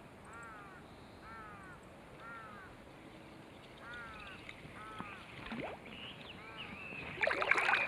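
A bird calling over and over in a series of short, arched notes, about two a second. Another, louder and higher call joins in near the end.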